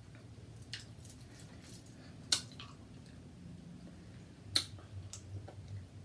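Faint wet squishes and small clicks of boiled seafood being handled by hand, with two sharper clicks about two and a half and four and a half seconds in.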